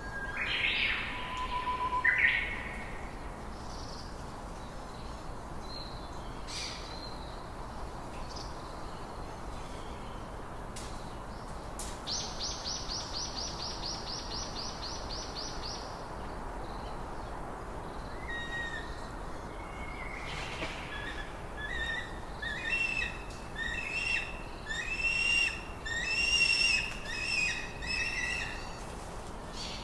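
Outdoor ambience with birds calling over a steady background hiss: scattered high calls, a rapid trill lasting about four seconds near the middle, then a quick run of repeated chirps in the last third.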